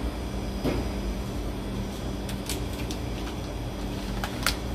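Steady low background hum with a few short, light clicks and knocks scattered through it.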